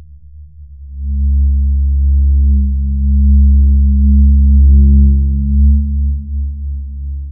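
A deep, low droning tone: a horror-film atmosphere sound effect. It swells up about a second in, holds loud, then eases off toward the end.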